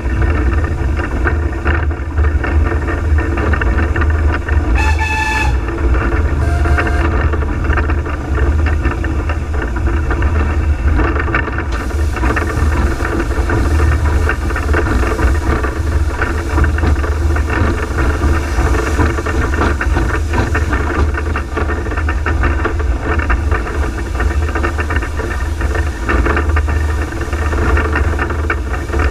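Cab noise on the footplate of Peckett saddle-tank steam locomotive Ashington No.5 as it works along: a steady low rumble with constant rattling. About five seconds in there is a short whistle toot, followed by a briefer, lower tone.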